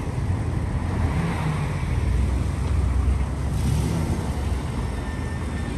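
Road traffic passing close by: cars driving along a city street with a steady low rumble and tyre noise. A brief hiss sounds about three and a half seconds in.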